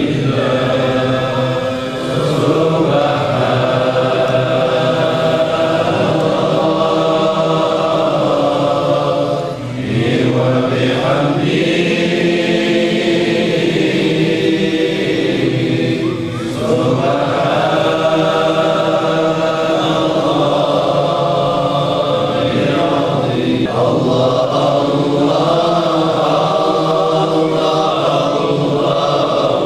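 A group of men chanting an Islamic devotional chant together in long, steady phrases, with short breaks for breath roughly every seven seconds.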